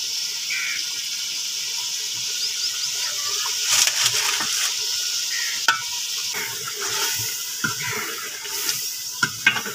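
Meat, onions and tomatoes sizzling and bubbling in ghee in a metal pot, with a steady hiss and a metal spatula scraping and clinking against the pot now and then.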